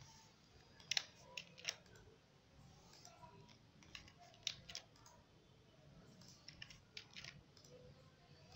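Faint, scattered clicks of a computer keyboard and mouse as the model is edited, a quick group of three about a second in and more around four and seven seconds.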